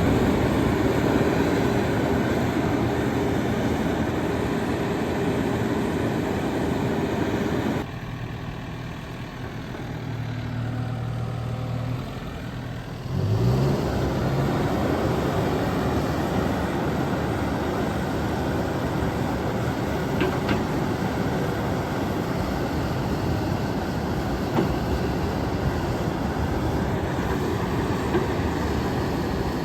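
John Deere 310K backhoe loader's diesel engine running steadily. About eight seconds in it drops suddenly to a quieter, lower hum. About five seconds later it picks up again with a short rising rev and runs on steadily.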